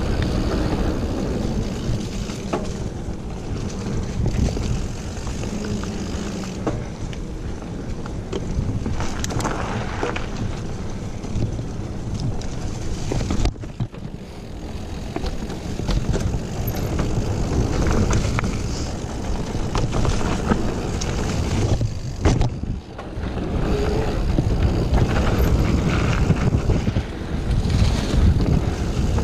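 Wind buffeting the microphone of a mountain bike ride-along camera, over the steady rumble of mountain bike tyres rolling on dirt singletrack strewn with dry fallen leaves, with scattered small clicks and rattles. The sound drops away briefly twice.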